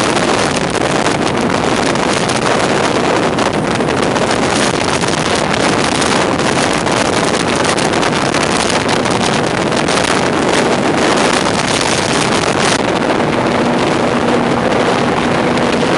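Jet boat running at speed, a loud steady rush of engine, water jet and spray, with wind buffeting the microphone. About thirteen seconds in the hiss eases and a steady engine hum comes through.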